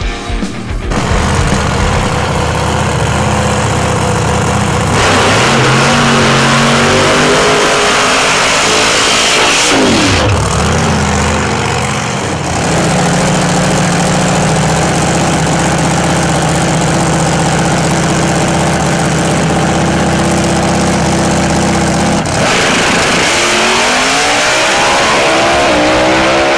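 Supercharged Pro Mod drag car's V8 running loud: it revs up and down through the first half, then holds a long steady drone. Near the end it launches, its pitch climbing as it pulls away down the strip.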